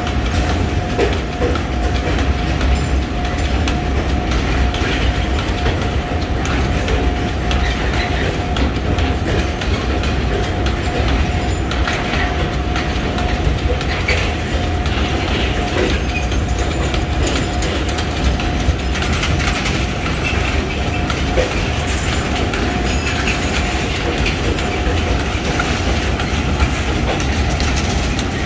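Narrow-gauge sugarcane train of the Huwei sugar mill rolling past steadily on its light rails, with a thin, steady high tone over the rumble.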